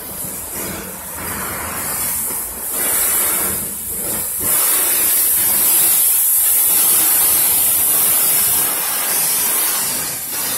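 High-pressure car-wash wand spraying water, a steady hiss that grows louder about four and a half seconds in and eases near the end.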